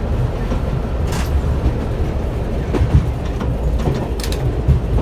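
Class 121 single-car diesel railcar running at speed, heard from its driving cab: a steady low rumble of the underfloor diesel engines and wheels on the track, with a few sharp clacks as the wheels cross rail joints.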